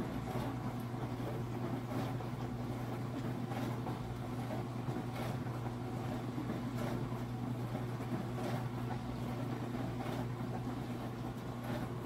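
KAPAS portable countertop dishwasher running a wash cycle: its pump hums steadily while water sprays inside, with a swish of water coming round at an even beat, roughly every second and a half to two seconds.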